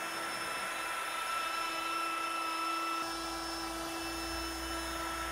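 Makita compact router with a surfacing bit running steadily with a high, even motor whine as it skims the face of a hardwood ring flat. A low rumble joins about three seconds in.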